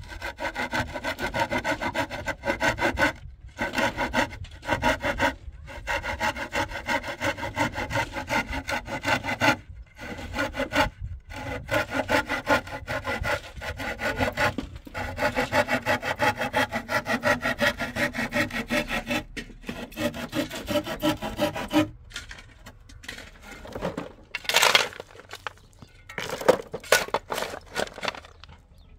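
Handsaw cutting through a wooden plank in fast back-and-forth strokes, with a few short pauses. About 22 seconds in the sawing stops, and a few separate scraping knocks follow.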